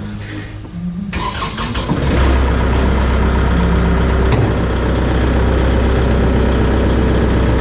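Kubota compact tractor's diesel engine starting about a second in, then running steadily with a loud, deep hum as the three-point hitch raises the weight box.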